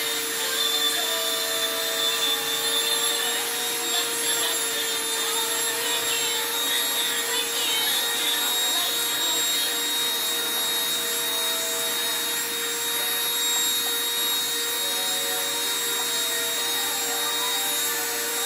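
Small handheld rotary drill running at a steady speed, its diamond bit grinding a hole through a piece of sea glass: a steady motor whine over a hiss.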